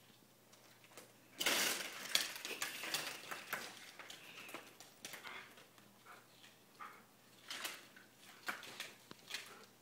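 Vertical blind slats clattering and knocking together as an animal pushes through them. A loud burst of rattling comes about a second and a half in, then scattered clicks and taps follow.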